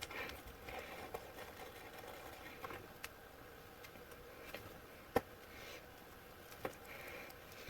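Faint, scattered metallic clicks and taps of hand tools working on a BMX crank and bottom bracket, with one sharper click about five seconds in and another a second and a half later.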